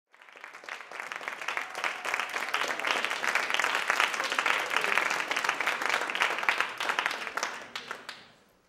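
Audience applauding. The clapping builds over the first second or two, holds steady, then thins to a few last claps and dies away near the end.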